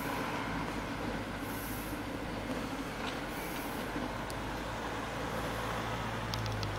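Steady low mechanical rumble, vehicle-like engine noise with a low hum that swells slightly near the end, and a few faint high ticks.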